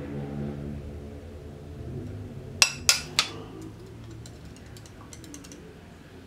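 Three sharp clicks about a third of a second apart, a plastic lab tube and its screw cap knocking against glassware as they are handled, followed by a few light ticks. Soft background music plays underneath.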